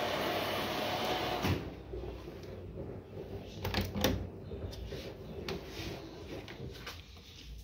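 Steady running noise of a front-loading washing machine, which stops suddenly about a second and a half in. Then a tumble dryer's door is pulled open by hand, with several sharp clicks and knocks from the door and its catch.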